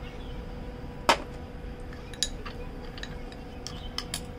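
Small metal spoon clinking against a little glass bowl while olive oil is stirred into mint powder: one loud clink about a second in, then a string of lighter taps.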